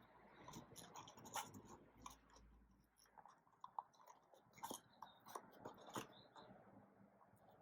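Faint rustling and scattered small clicks of ribbon and card being handled as a bow is tied on a paper gift box, a few sharper ticks standing out now and then.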